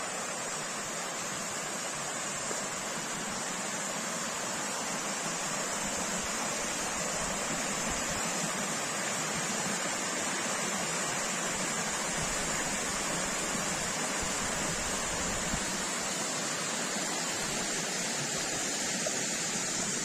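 A small waterfall cascading down a mossy rock face, its falling water rushing steadily and evenly.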